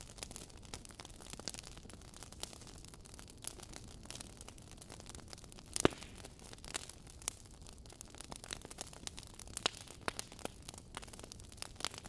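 Log fire crackling in a fireplace: irregular small pops and snaps, with one louder pop about six seconds in, over a steady low background.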